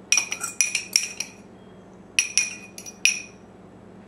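Metal fork clinking and scraping against a small ceramic ramekin while scraping out melted butter with garlic and lemon zest. There are two quick runs of bright, ringing clinks, the second starting about two seconds in.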